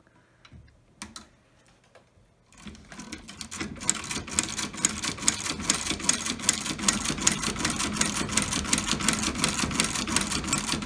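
Dürkopp Class 17 sewing machine stitching leather. After a few faint clicks it starts about two and a half seconds in, picks up speed, then runs as a fast, even clatter of stitches, about six a second.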